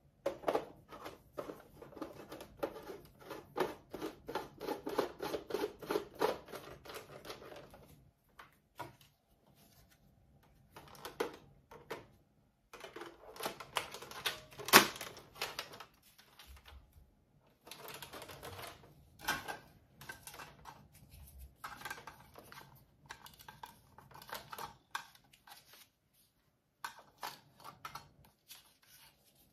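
Plastic clicks and rattles of a Buzz Bee Air Warriors Snipe toy dart blaster being handled and fitted with its barrel, scope and clip: a dense run of clicks for the first eight seconds, one sharp loud click about fifteen seconds in, then scattered clicks with short pauses.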